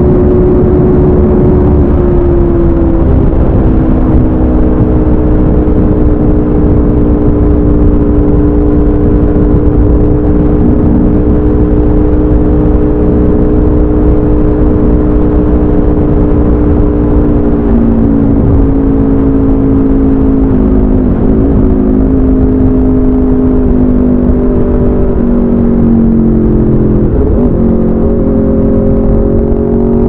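Aprilia RSV4 RF V4 engine with a de-catted SC Project CRT exhaust, running at a steady cruise while the bike rides at highway speed. The engine note holds steady, drops a touch a couple of seconds in, and dips briefly a few times in the second half. It settles slightly lower near the end.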